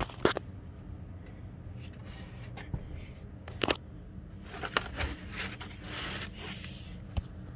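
Handling noise from unpacking: a few sharp knocks with a stretch of rustling in the middle.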